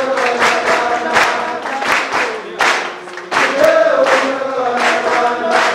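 A group of voices singing together in a held, chanted melody, with hand claps keeping a steady beat.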